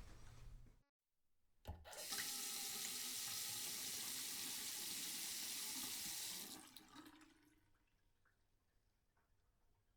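Water tap running into a sink. A click about a second and a half in, then a steady stream of water for about four and a half seconds, trailing off to quiet.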